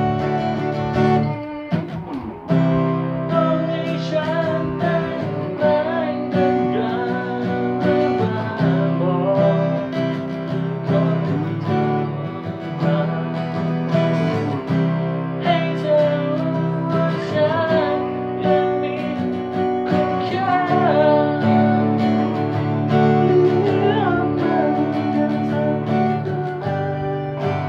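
Two guitars playing together: chords underneath and a lead melody on top that bends in pitch. There is a short break about two seconds in.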